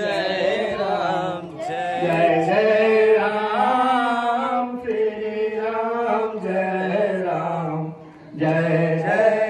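A man singing a devotional chant into a microphone, heard through loudspeakers. He sings in long, drawn-out phrases with short pauses for breath between them.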